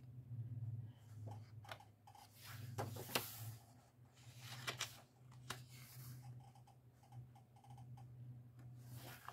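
Paper pages of a coloring book being turned and handled: a few soft rustles and light clicks, over a faint steady low hum.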